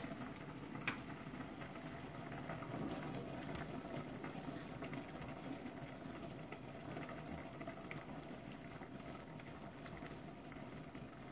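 Pot of ramen boiling on an induction cooktop, a steady low bubbling. Scattered light clicks run through it, the sharpest about a second in. In the second half chopsticks stir the noodles in the steel pot.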